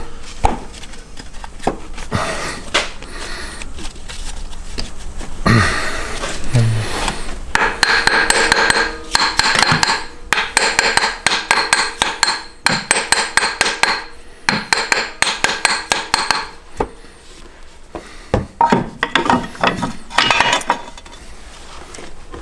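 Hand tools working on metal: rapid runs of sharp metallic taps and clicks with a ringing tone, densest through the middle, as a rusted, stuck part is worked loose.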